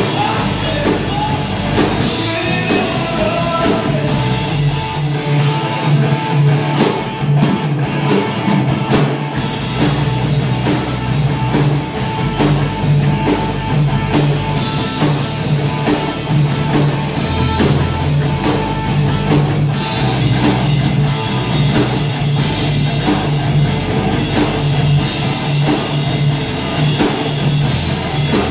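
Live rock band playing loud: electric bass, electric guitar and drum kit. The low end drops away for a few seconds about six seconds in, then comes back.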